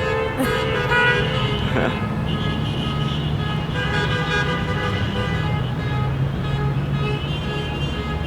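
Many car horns honking at once in a celebratory street convoy: overlapping held tones of different pitches, starting and stopping throughout, over the hum of the passing traffic.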